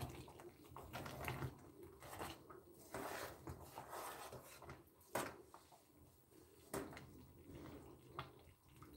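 Quiet cooking sounds at a steel pot on a gas hob: a few light, sharp clicks and knocks from the pot being handled as ingredients are dropped in by hand, the clearest about five seconds in.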